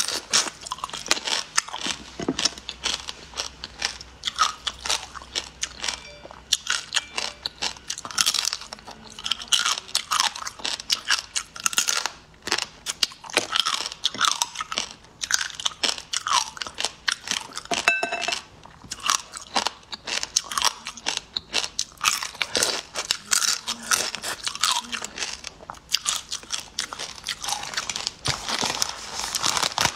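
Close-miked crunching and chewing as crunchy food is bitten and eaten, many crisp bites in a row, with crinkling near the end as a thin dried sheet of food is handled.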